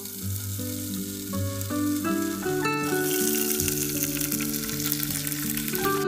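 A thin slice of meat sizzling in a ridged grill pan over a charcoal grill. The sizzle grows much louder about halfway through, under background music.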